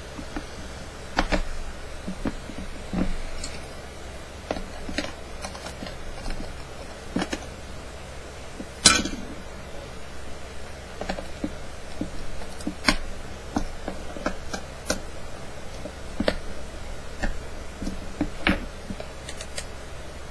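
Irregular clicks, clinks and light knocks of small hard objects being handled on a workbench, about a dozen spread out, with the loudest sharp click about nine seconds in, over a low steady hum.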